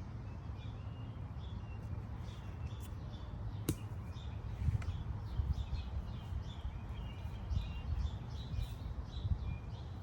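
Small birds chirping over and over, short high calls, above a steady low rumble, with one sharp click about four seconds in.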